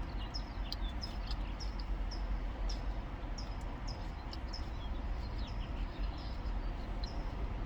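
Small birds chirping: a string of short, high chirps that dip in pitch, repeating about once or twice a second, over a steady low rumble.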